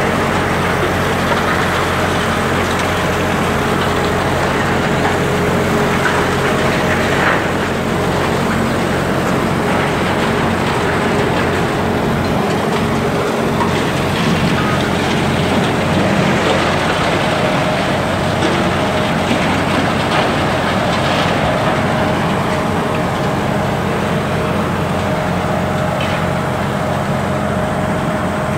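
Heavy diesel engine of a demolition excavator running steadily, with a brief knock about seven seconds in.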